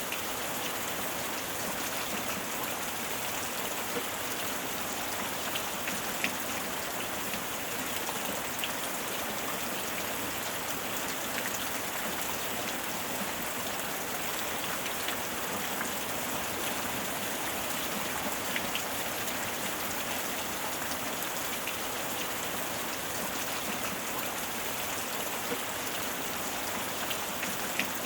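Steady rainfall, an even hiss of rain with scattered individual drops ticking out of it.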